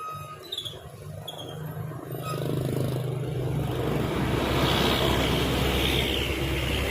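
A road vehicle approaching: engine hum and tyre noise build up over the first few seconds, then hold steady and loud. No horn sounds.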